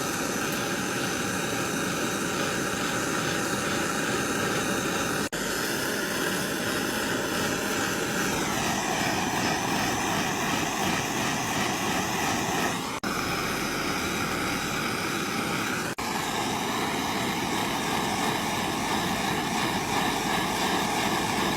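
Handheld electric hot-air blower running steadily, its motor and fan giving a whine over a rush of air, heating a heat-shrink solder-sleeve connector. Its whine shifts slightly in pitch about eight seconds in.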